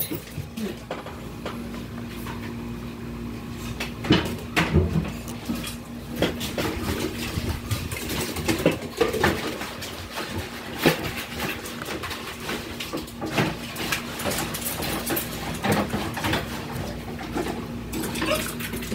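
Irregular clicks, knocks and light clatter as small numbered tokens are handled and drawn, over a steady low hum.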